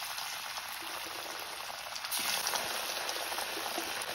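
Breaded nuggets deep-frying in hot oil in a kadai: a steady crackling sizzle, a little louder from about two seconds in.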